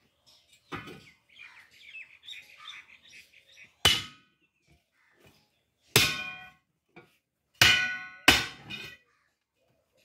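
Hammer striking the steel rim of a tractor-trolley wheel during tyre fitting: five sharp, ringing metallic clangs spread over the second half, the last three close together.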